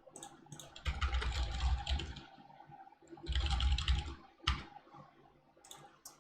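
Computer keyboard being typed on in two quick runs of keystrokes, then a single key press and a few more taps near the end.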